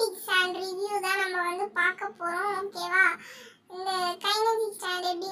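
A child's high voice in a sing-song, singing-like delivery, in short phrases with a brief pause about three and a half seconds in.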